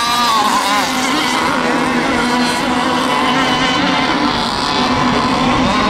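Several radio-controlled racing boats running on the water, their engines whining with a pitch that wavers up and down as they throttle and turn.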